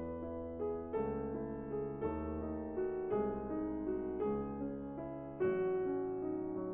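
Background piano music: slow, gentle chords and notes changing about once a second.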